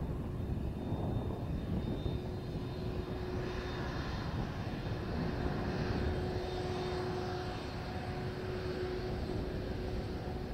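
The two General Electric CF6 turbofans of a Kawasaki C-2 military transport run as the aircraft rolls on the ground. There is a low rumble, a steady whine that sets in about two seconds in, and a hiss that swells in the middle.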